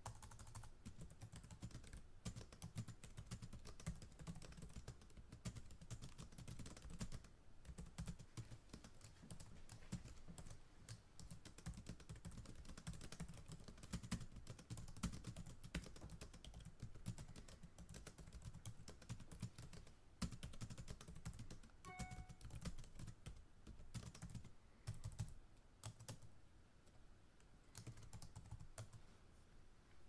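Fast typing on a computer keyboard, heard close up: a rapid run of key clicks with a few short pauses, and a brief faint tone about two-thirds of the way through.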